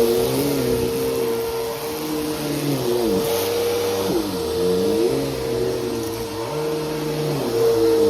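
Bissell Powerforce Helix bagless upright vacuum running: a steady motor whine, with lower tones dipping and rising several times. Its motor is one the owner says is already failing and arcing badly.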